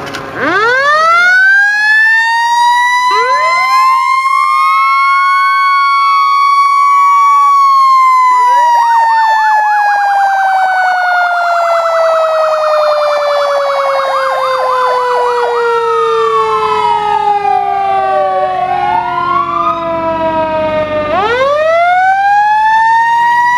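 Loud fire truck sirens. One winds up right at the start, holds, then slowly winds down over about 13 seconds and winds up again near the end, while a second siren sweeps up and down and warbles rapidly through the middle.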